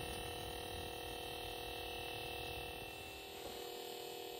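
A low, steady electrical hum with hiss, made of several fixed tones that do not change.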